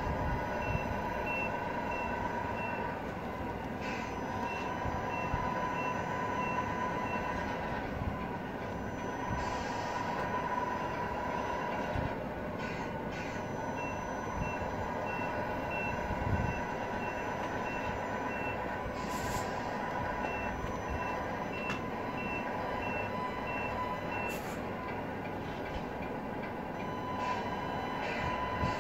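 Radio-controlled Scania R470 truck reversing: a steady engine-like hum with a high reversing beeper sounding in several runs of about two beeps a second.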